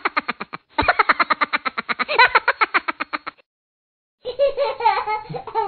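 A fast, even run of short pitched pulses, about ten a second, lasting about three seconds. After a short pause, a long, wavering meow-like call falls in pitch near the end.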